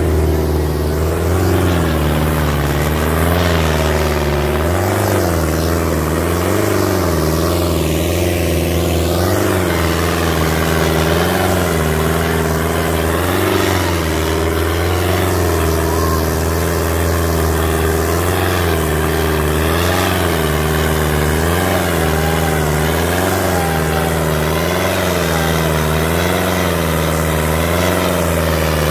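Sonalika 750 tractor's diesel engine running hard under load, pulling a double harrow. It stays loud and steady, its pitch rising and falling in a slow, regular wave about every second and a half.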